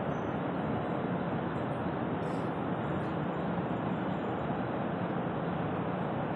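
Rubber conveyor belt running over its steel idler rollers: a steady, even mechanical noise with a faint low hum, unchanging throughout.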